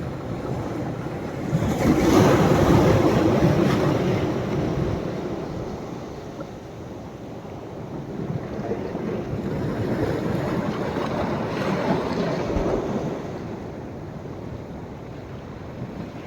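Sea waves breaking and washing up the beach, with two surges, the first about two seconds in and the second around ten seconds in, each fading back between them.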